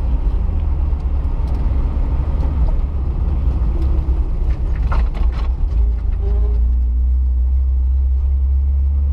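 Steady low drone of a car heard from inside, the engine and road noise of a car being driven, with a few short clicks about five seconds in.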